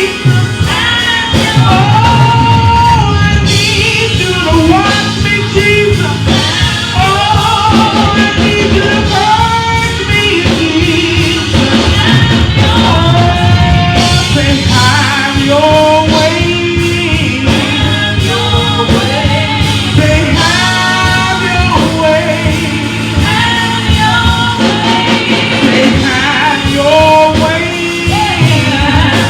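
Gospel music: singing over an instrumental band accompaniment, continuous and loud.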